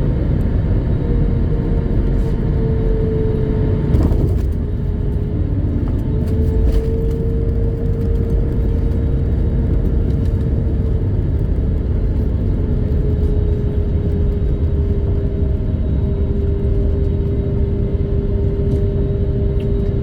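Steady rumble of engine and airflow noise inside an Airbus A321neo cabin, with a steady engine tone that drifts slightly in pitch. A single knock comes about four seconds in.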